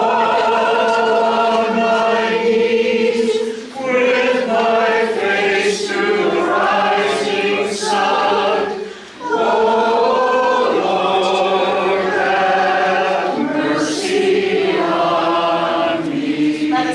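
A congregation singing a hymn together, in long held phrases with short breaks between the lines.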